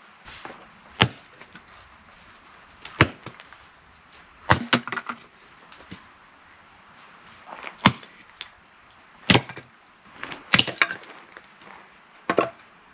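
A 1¼-pound hatchet splitting firewood into kindling: about seven sharp chops of the blade into the wood, irregularly spaced a second or two apart, some with a splitting crack.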